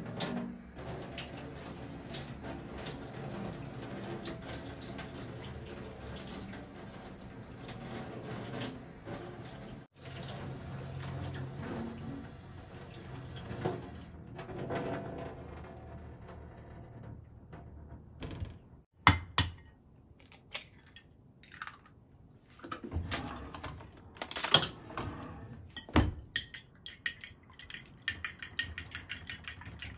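Kitchen tap running steadily into a stainless-steel sink while grilled eggplant is rinsed and peeled under the stream. After the water stops, a few sharp knocks and clinks on ceramic dishes, then a quick regular clicking of a utensil against a ceramic dish, about five a second, as a raw egg is beaten.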